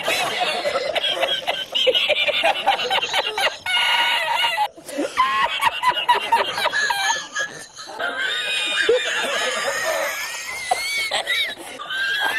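A man laughing hard in long, high-pitched fits, breaking off for a moment twice.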